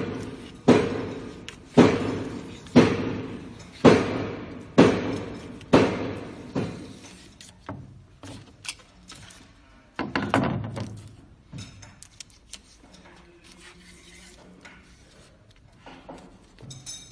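Eight sharp knocks about a second apart, each ringing out and fading in a large, echoing room, then one more about ten seconds in, followed by faint scattered ticks.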